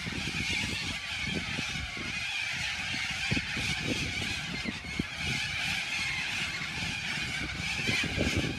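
A large flock of little corellas screeching together in a continuous, dense chorus, with low rumbling bumps underneath.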